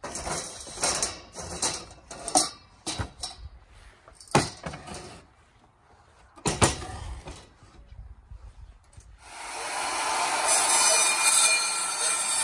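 Several sharp knocks and clatters of a wooden batten and an electric circular saw being handled on a wooden table, then about nine seconds in the circular saw starts and runs steadily, cutting through the wooden batten.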